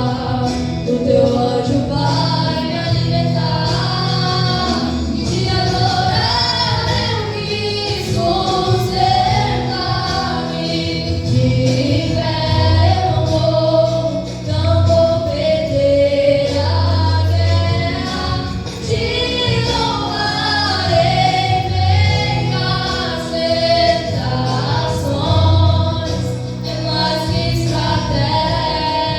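Music: a Christian worship song sung by female voices over instrumental backing with a steady bass line.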